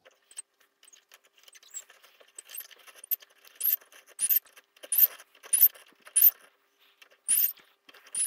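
Antique Ansonia clock's steel mainspring being wound tight on a hand-cranked mainspring winder: faint scraping at first, then from about two seconds in a series of short metallic clicks and rasps, roughly one every half second to a second, as the oiled coils draw in.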